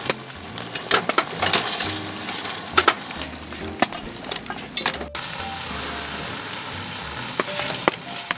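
Food sizzling and frying in a pan, with scattered sharp clicks and a few light clinks. Background music with a stepping bass line plays underneath.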